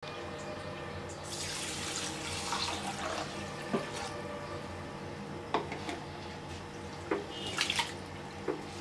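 Water poured into a glass bowl of rice and moong dal, starting about a second in, then a hand swishing and rubbing the grains in the water with a few short splashes, washing them before soaking.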